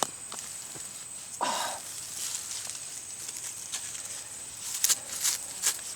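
Metal shovel scraping and crunching into hard, compacted soil, with a few sharp scrapes near the end. A steady high-pitched whine runs underneath.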